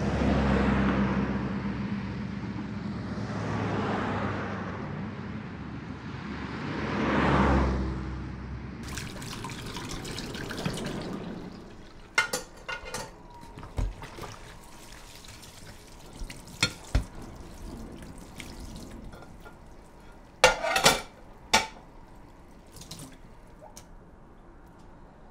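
Traffic passing in three swells that rise and fade, then water running from a kitchen tap into a steel sink, followed by scattered sharp clinks and knocks of dishes being washed.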